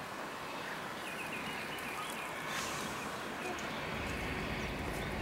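Steady hiss from a standing steam locomotive (C58 class) in the open air, with a few faint chirps about a second in and a low rumble that sets in about four seconds in.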